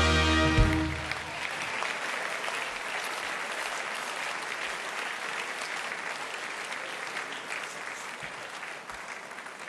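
Large audience clapping and cheering after a punchline, fading slowly toward the end. A short musical chord rings out over the first second.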